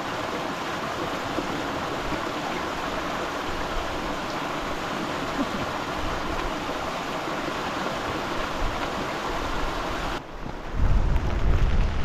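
Small mountain-stream waterfall splashing into a rock pool, a steady rush of water. About ten seconds in it cuts to louder, gusting wind buffeting the microphone.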